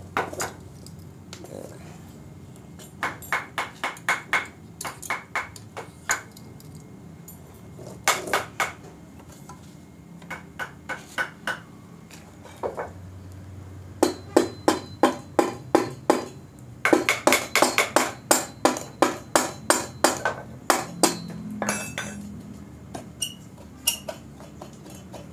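Hammer blows on a steel motorcycle exhaust, coming in bursts of several ringing metal strikes about four or five a second with short pauses between. The blows are knocking a stuck section of the exhaust loose to take it apart.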